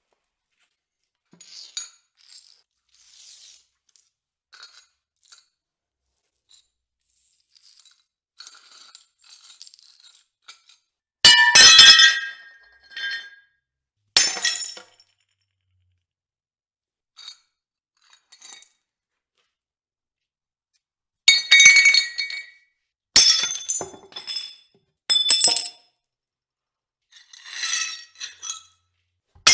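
China plates breaking: several sharp shattering crashes, the loudest about eleven seconds in and a cluster near the end, with small pieces of china clinking and tinkling between them.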